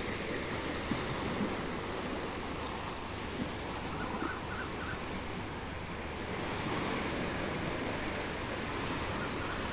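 Small waves washing up on a sandy beach shore, a steady rush of surf with a slight swell about two-thirds of the way in.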